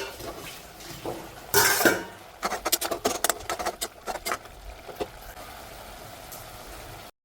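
Kitchen utensils clinking against dishes: a short scrape, then a quick run of light metallic clicks and clinks for a couple of seconds. The sound cuts off abruptly near the end.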